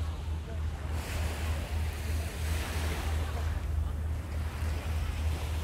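Wind buffeting the microphone in a low rumble, over a steady wash of sea surf.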